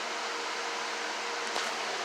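Lasko 3733 box fan running on its high speed setting: a steady rush of air with a faint hum, and one light click about one and a half seconds in.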